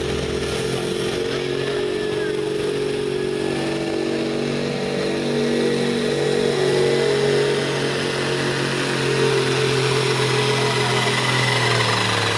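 Farm tractor's diesel engine under full load, pulling a weight-transfer sled. It runs steadily, and near the end its pitch sags as the engine lugs down under the growing load.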